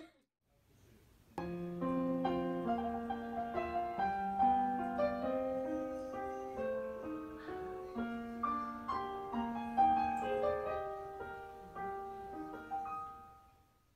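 Solo piano music, a melody over chords. It starts about a second and a half in and fades out near the end.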